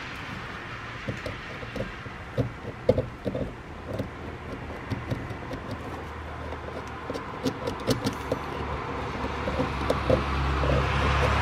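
Thin metal pick scraping and picking in the slot of a screw head on a wooden saw handle, making scattered small clicks and scratches. A low rumble builds near the end.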